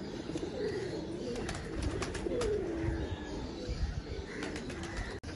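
Domestic pigeons cooing: several low, wavering coos overlapping one another, with a few faint clicks.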